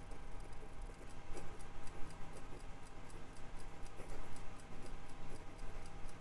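Pilot Prera fountain pen with a medium nib writing cursive on lined notepad paper: a quick run of faint ticks and light scratches as the nib moves over the paper.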